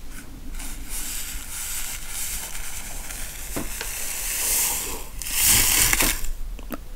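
Hot chocolate powder pouring from a paper sachet into a ceramic mug: a steady, sandy hiss that grows louder about five seconds in.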